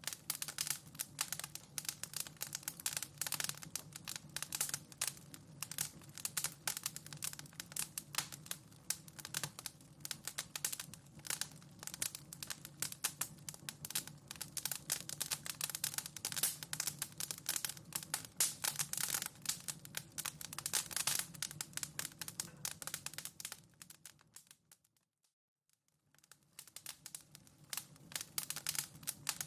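Wood fire in a fireplace crackling, with many small pops and snaps over a steady low hum. About 25 seconds in it fades out briefly, then the crackling resumes.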